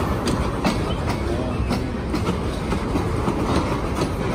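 A freight train of tank cars rolling past: a steady low rumble with the wheels clicking over rail joints several times a second.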